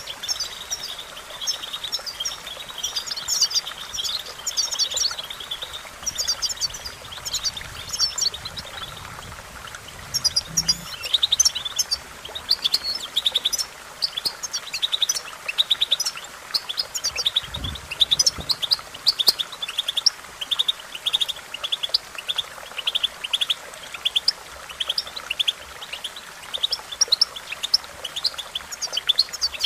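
European goldfinch singing: long runs of fast, high twittering and chirping notes, coming in bursts with short gaps.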